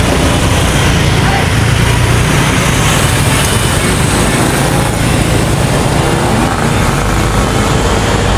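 Loud, steady engine and road noise of a bus, with no horn melody sounding.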